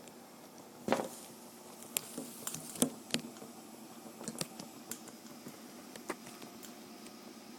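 Irregular sharp clicks and pops over a faint steady hiss from a Mamod SE2 toy steam engine's boiler heating up on its solid-fuel burner, before it has raised steam.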